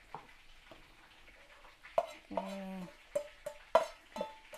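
Metal tongs and a fork scraping and tapping against a frying pan as fried chillies, tomato and onion are pushed out of it into a stone mortar for grinding into sambal. Quiet at first, then a run of sharp clicks and knocks over the second half, with a short humming tone about halfway.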